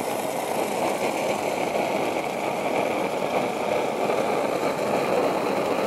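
Homemade copper coil jet alcohol stove burning at full output, a steady rushing noise from its jets, with water at a rolling boil in the pot above it.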